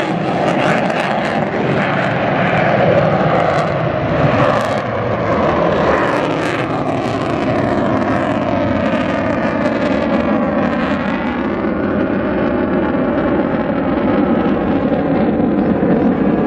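Lockheed Martin F-22 Raptor's twin Pratt & Whitney F119 turbofan jet engines making loud, continuous jet noise during a display flypast. A sweeping, phasing whoosh comes around the middle as the jet passes.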